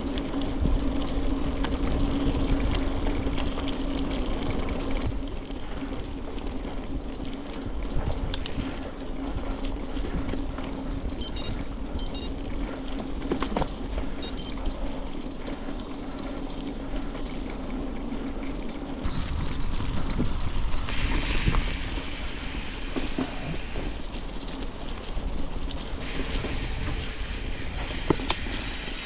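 A heavy bicycle being ridden: a steady rolling rumble from tyres and drivetrain, with a low hum that is strongest in the first few seconds and scattered clicks and rattles.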